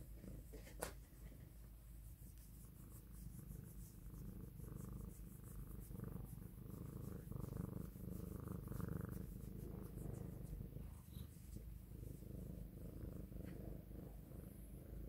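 Domestic cat purring steadily while being stroked under the chin, with a faint click about a second in.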